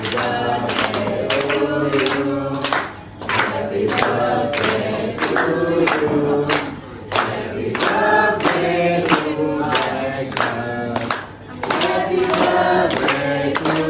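A group of people singing together, with a steady clap on the beat about two to three times a second and brief breaks between phrases.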